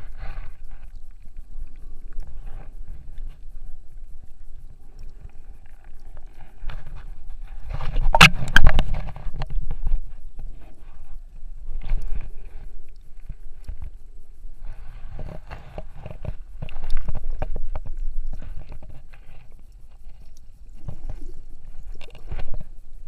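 Sea water sloshing and gurgling around the camera, with louder surges every few seconds, the loudest about eight seconds in.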